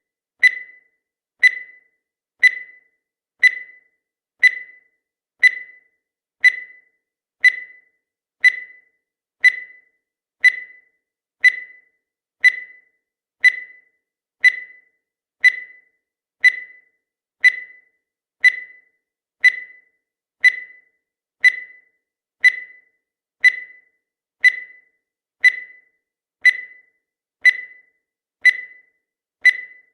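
Countdown timer sound effect: a short, high blip once every second, each fading quickly, keeping an even pace as the seconds count down.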